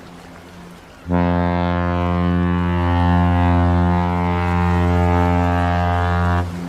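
A cruise ship's horn sounding one long, deep blast of about five seconds, starting about a second in and cutting off near the end.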